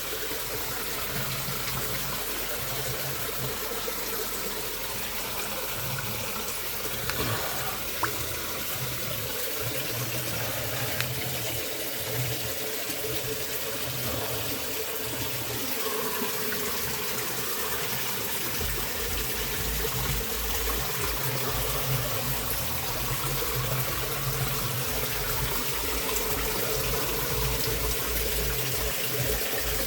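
Warm-spring waterfall running, a steady rush of splashing water.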